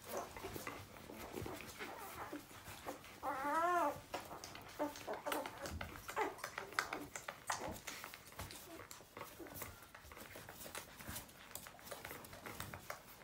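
Newborn puppies nursing, with many small wet suckling clicks. About three seconds in, one puppy gives a wavering, high-pitched whimpering squeal lasting most of a second, followed by a few shorter squeaks.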